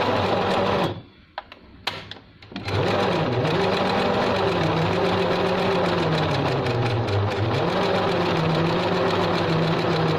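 Singer 354 portable sewing machine stitching through cloth. It runs for about a second, stops with a few clicks in the pause, then starts again about two and a half seconds in and runs continuously, its speed easing off and picking up again now and then. It is running normally after its pinion gear was replaced and the machine re-adjusted.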